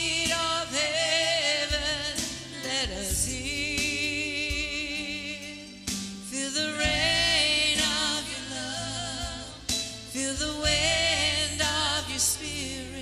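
Gospel-style worship music: a singer holding long, wavering notes with heavy vibrato over sustained low chords that change every few seconds.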